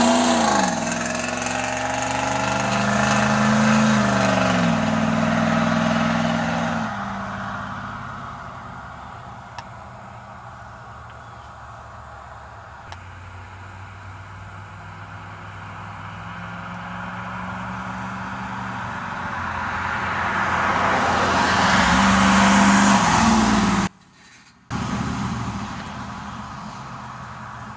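1982 Pontiac Trans Am's V8 with an Edelbrock SDT exhaust passing close by, its note dropping in pitch, then pulling away with rising revs and fading into the distance. About twenty seconds in it comes back past loudly. The sound cuts out for a moment, then the car is heard again faintly in the distance.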